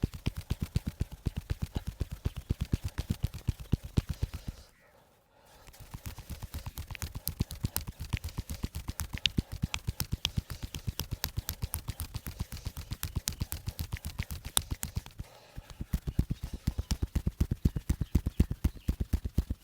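Rapid rhythmic slaps of a percussive hand massage (tapotement) on the body, several strikes a second, pausing briefly about five seconds in and again near fifteen seconds.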